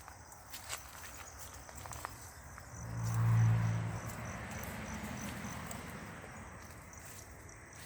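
Insects chirping in a faint, high, regular pulse. A low hum and rush swells about three seconds in, is loudest briefly, and fades over the following seconds.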